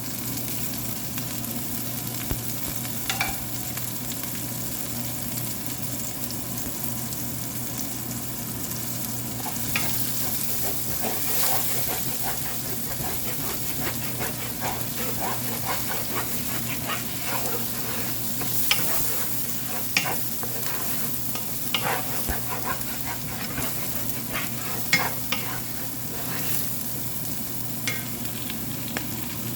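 Chopped garlic and green onion roots sizzling in hot oil, with a steady hiss throughout. A spatula scrapes and taps against the pan as they are stir-fried, the clicks growing more frequent after about ten seconds.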